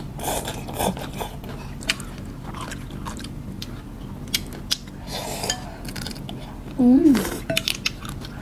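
Close-up eating sounds: rice noodles in broth slurped and chewed, with scattered small clicks of lips and chopsticks. A short voiced "mm" about seven seconds in is the loudest moment.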